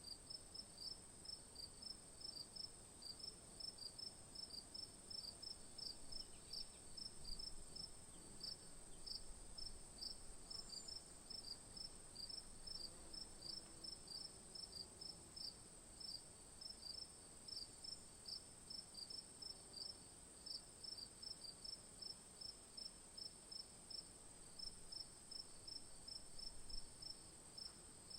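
Crickets chirping: short, evenly spaced high chirps about two to three a second, over a steady, higher-pitched trill.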